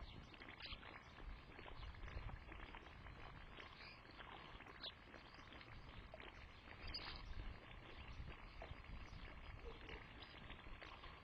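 Faint garden ambience: a steady low hiss with scattered short bird chirps.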